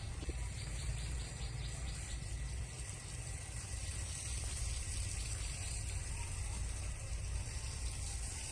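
Insects chirring steadily in a high, even hiss, with a faint rapid pulsing chirp in the first second or so. A low rumble runs underneath.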